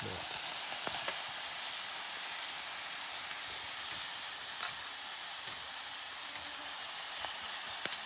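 Squirrel meat with onions and chilli sizzling steadily in a metal pot over campfire coals, stirred with a metal spoon that clicks lightly against the pot a few times.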